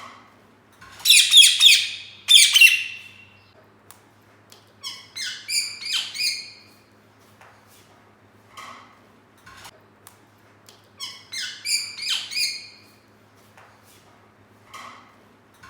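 Green ringneck parrot squawking and chirping in three bursts of rapid, harsh calls, the loudest about a second in, with a few softer single calls between them. A faint steady hum sits underneath.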